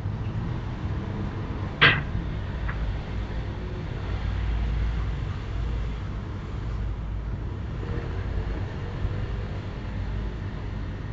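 A single sharp bang of metal being struck about two seconds in, followed by a fainter knock, over a steady low outdoor rumble.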